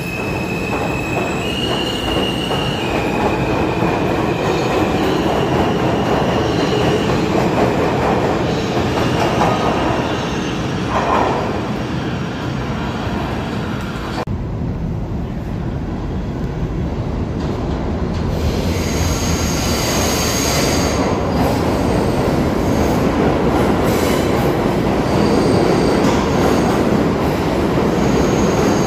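New York City subway trains in an underground station. A departing train runs with a steady rumble of wheels on rail and high whining tones that step up and down in pitch. After a sudden change about halfway through, another train rumbles in, with a faint wheel squeal.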